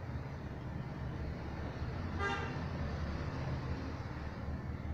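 Steady low rumble of background road traffic, with one short vehicle horn toot a little over two seconds in.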